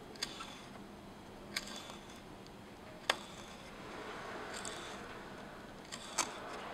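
Tiny knife slicing raw meat on a miniature wooden cutting board: four sharp taps as the blade meets the board, the loudest about halfway through, and a soft scraping stretch between the last two.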